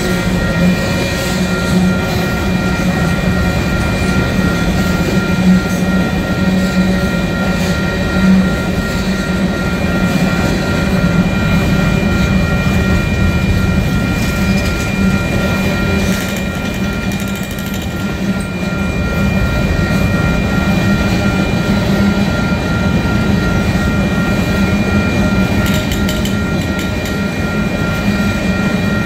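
Covered hopper cars of a Union Pacific freight train rolling steadily past: a continuous rumble of steel wheels on rail, with a thin steady whine above it.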